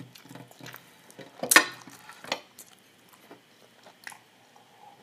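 A person eating close to the microphone: soft chewing and mouth sounds broken by a few sharp clacks, the loudest about a second and a half in and another just after two seconds.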